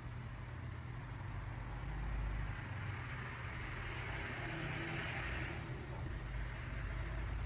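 Steady low mechanical hum, with a faint hiss swelling and fading about four to five seconds in.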